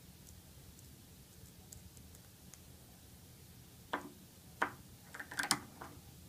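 Quiet for about four seconds, then a handful of short, sharp clicks and taps as snap ring pliers seat a metal snap ring in the groove of a pneumatic actuator lid.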